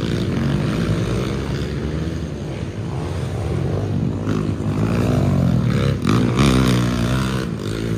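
Several dirt bike engines running and revving together, their pitch rising and falling as the riders throttle through a dirt corner, with a stronger rising rev in the second half.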